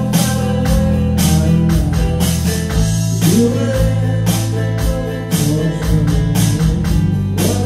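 Small rock band playing live in a room: bass guitar and guitars over a steady beat.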